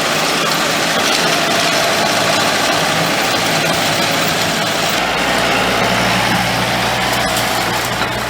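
Farm tractor engine running during grass harvesting. About five seconds in, the sound changes to a steadier, deeper engine hum.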